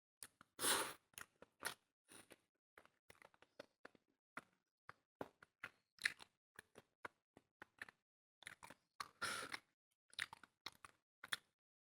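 Close-up chewing of food: an irregular run of short wet mouth clicks and crunches, with two longer, louder bursts about a second in and about nine seconds in.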